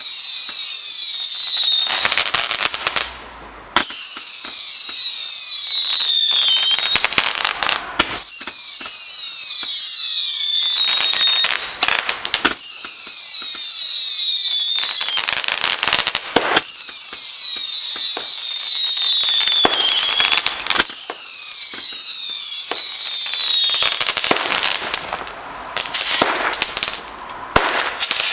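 Whistling fireworks: a run of shots, each a high whistle falling in pitch for two to three seconds over dense crackling, one about every four seconds. Near the end the whistles stop and scattered crackles and pops remain.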